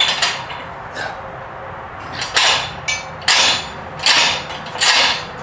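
Red steel Harbor Freight manual tyre changer being handled at the wheel: about six short metallic scrapes and clatters in a few seconds.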